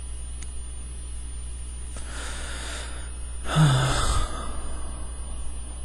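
A man breathing close to a headset microphone: a soft breath in about two seconds in, then a louder sighing breath out with a brief low voice in it about a second later, over a steady low electrical hum.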